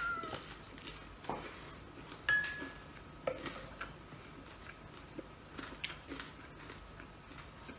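Quiet eating sounds: chewing, with scattered small clicks and taps of a spoon and dishes, and one short ringing clink a little over two seconds in.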